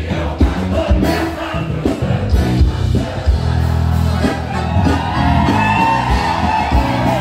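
Live amplified gaúcho band music with accordion, bass and drums, and a large crowd singing along.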